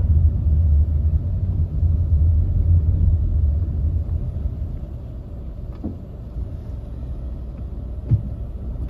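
Low, steady rumble of a moving car heard from inside the cabin: engine and tyre noise on the road, easing off a little after about four seconds. A short knock comes near the end.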